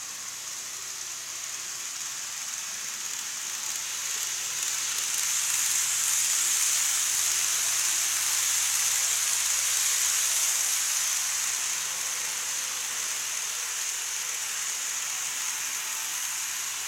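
N-scale model train running along plastic viaduct track, its wheels and motor giving a steady high hiss. The hiss swells as the train passes close by, peaks in the middle and then eases off.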